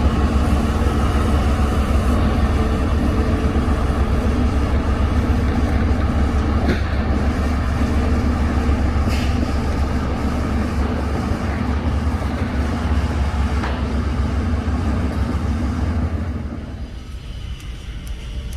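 Heavy earthmoving machine's diesel engine running steadily, with a few short clanks. The engine sound drops in level near the end.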